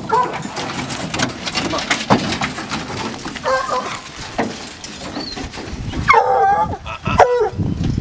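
Bear-hunting hounds barking and bawling from the truck's dog boxes: several short barks, then a longer bawl about six seconds in that drops in pitch and then holds. Footsteps through grass and light knocks run underneath.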